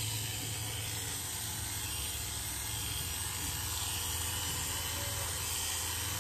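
Electric dog clippers with a No. 7 ceramic blade running with a steady buzz while clipping the hair on a doodle's leg.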